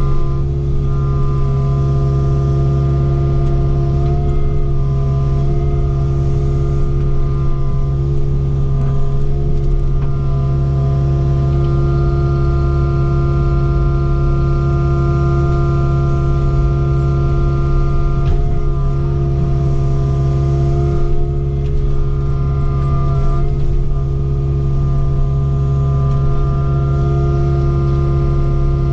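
Kubota KX057-4 excavator's diesel engine running at a steady pitch, with a few brief dips in its note as the hydraulics work to grab brush.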